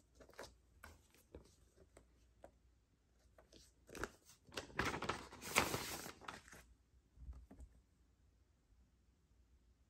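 Paper inner sleeve of a vinyl LP rustling as it is handled: a few light rustles and ticks, then a dense rustling for about two and a half seconds, the loudest part, as the record slides out of the sleeve.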